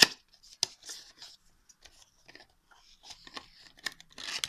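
Cardboard retail box being opened by hand and its clear plastic blister tray slid out: scattered sharp clicks and scrapes of card and plastic, the loudest a snap right at the start, with denser rustling near the end.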